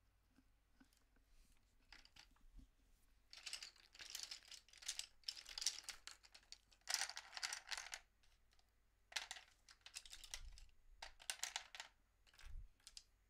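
Hands handling small hard objects: short bursts of clicking and rattling, about six in all, each roughly a second long, with two soft low thumps near the end.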